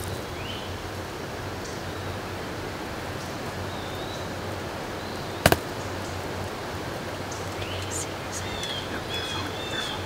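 Short high bird chirps come now and then over a steady hiss. There are a few near the start, one about four seconds in, and a cluster near the end. About halfway through a single sharp double click or knock stands out as the loudest sound.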